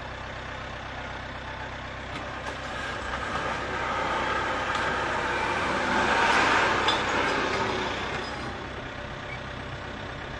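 A vehicle's engine idling steadily, with a rush of noise that swells and fades in the middle.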